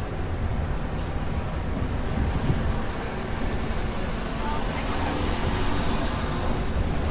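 Steady city street traffic: cars passing with a constant low rumble, mixed with indistinct voices of passers-by.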